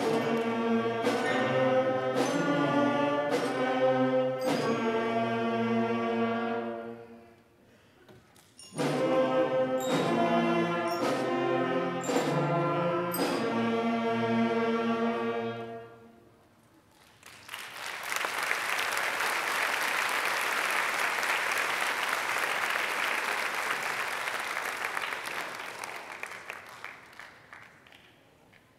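Sixth-grade school band playing two slow phrases of long held notes, then the audience applauding for about ten seconds until it fades out.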